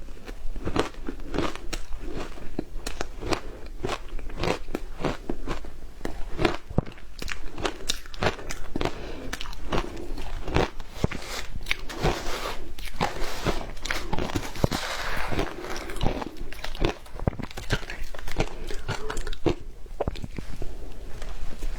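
Frozen matcha ice being bitten and chewed: a steady run of sharp crunches and cracks, several a second.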